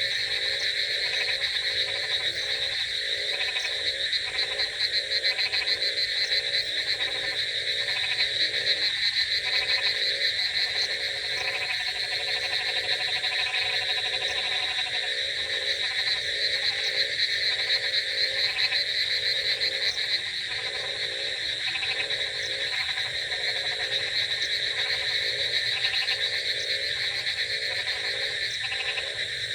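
A dense chorus of many frogs croaking over one another, steady throughout, with lower pulsed croaks repeating several times a second beneath a higher, continuous trilling.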